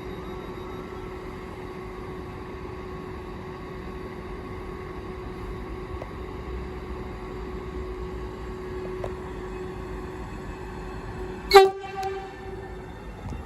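Train at a station with a steady hum, then one short, loud horn toot near the end.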